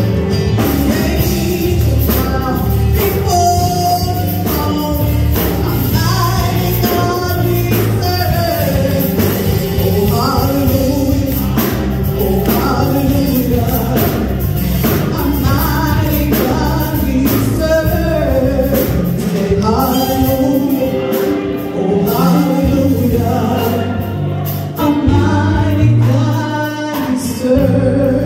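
A woman singing a gospel song into a handheld microphone, amplified through the church sound system, over an instrumental backing with steady low bass notes.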